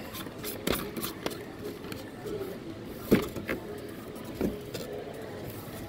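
Plastic candy jars with screw lids being handled in a cardboard display: a few scattered knocks and clicks, the loudest about three seconds in, over steady background noise.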